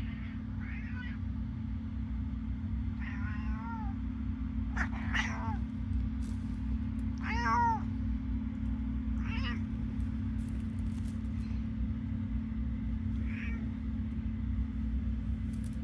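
Senior tortoiseshell cat meowing loudly about six times, a few seconds apart, calling out as she wakes from a nap. A steady low hum runs underneath.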